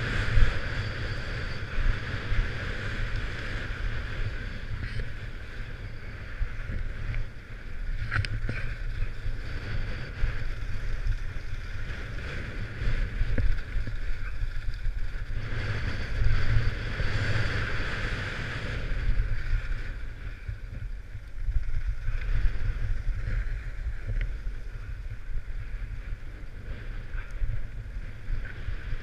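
Wind rumbling on the microphone of a camera worn by a rider going downhill, over the hiss of a board or skis sliding on snow. The hiss swells and fades with the turns, loudest about halfway through.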